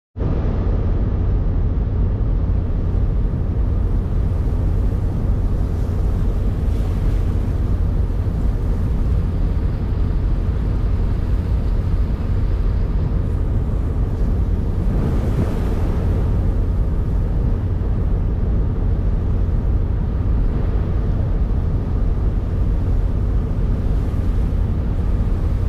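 Steady low rumble with wind buffeting the microphone, heard from a boat moving on the water.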